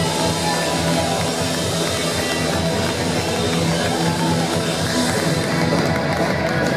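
Rock band playing loud and steadily, with electric guitars and drum kit.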